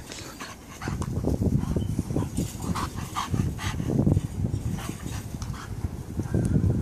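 French bulldog puppies making low, irregular noises as they play close to the microphone.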